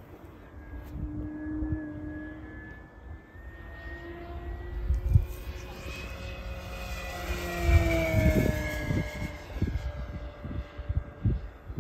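Brushless electric motor and propeller of a large RC pattern plane whining in flight: the tone drifts in pitch with throttle, swells toward the middle and drops in pitch as the plane passes about seven to eight seconds in. Low thumps break in here and there, the loudest about five and eight seconds in.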